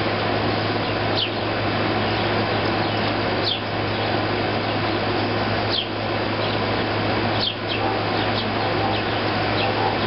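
Air conditioner running with a steady rushing noise and a constant low hum. Over it, sparrows give a handful of short high chirps, each sliding down in pitch.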